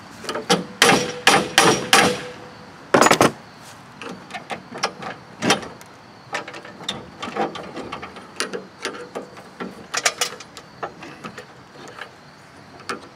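Metal-on-metal clicks and knocks as a tool works the end of a seized lawn mower safety cable loose from the handle. A run of about five sharp knocks comes in the first two seconds and a longer rattling burst about three seconds in, then lighter clicks and taps.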